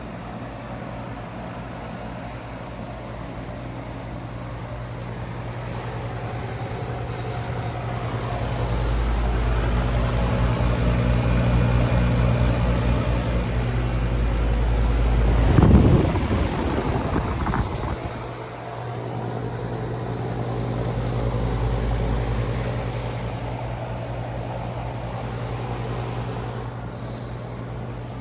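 Outdoor heat pump unit running: a steady compressor hum under fan noise. A low rumble swells through the middle and peaks in a brief rush of noise about sixteen seconds in, then drops away suddenly and builds again more gently.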